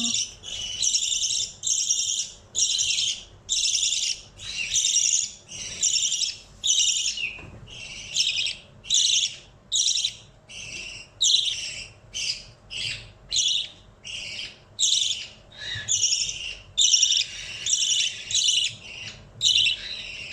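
Baby budgerigar giving harsh, rasping cries over and over, about three every two seconds, typical of a hand-fed chick begging for food.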